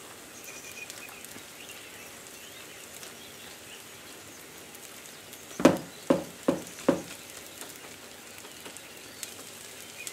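Rice frittata frying quietly in a non-stick pan with a faint sizzle, and a little past halfway four quick taps, about 0.4 s apart, as a silicone spatula pats the rice layer flat.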